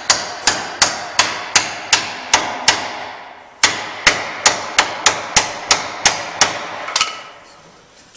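A hammer striking in a steady rhythm of about three blows a second, each blow sharp with a short ring after it. The hammering pauses for about a second near the middle and stops about seven seconds in.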